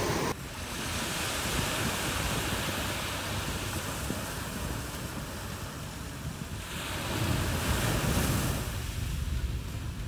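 Mediterranean sea waves washing onto the beach, with wind rumbling on the microphone. A wave swells and breaks about seven seconds in.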